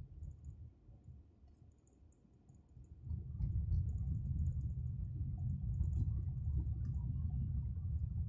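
Car interior road and engine noise picked up by a dashboard-mounted phone: a low rumble that gets clearly louder about three seconds in. Faint, irregular light clicks sound over it.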